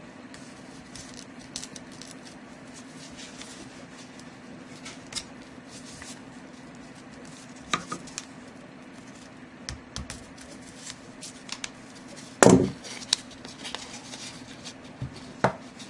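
Serrated folding-knife blade slicing and scraping at tape and a cardboard deck box: scattered soft scratches and ticks, with one louder brief noise about twelve and a half seconds in.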